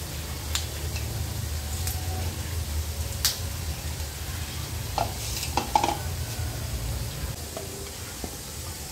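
Onions frying in oil, a soft sizzle, under a low steady hum that stops about seven seconds in. A few light clicks and knocks come as green chillies are snapped and whole spices are tipped into a grinder jar.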